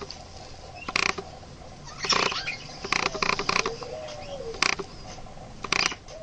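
Budgerigar giving short, sharp chirps, one about every second, with a cluster of them around two to three seconds in.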